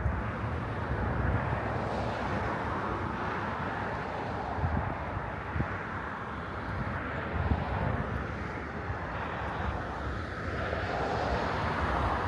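Airplane flying over, a steady engine noise, with gusts of wind buffeting the microphone.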